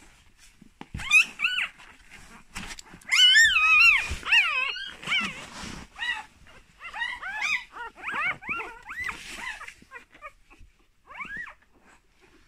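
Newborn puppies squeaking and whining: many short, high-pitched calls that rise and fall, loudest and densest about three to four seconds in, then thinning to a few near the end.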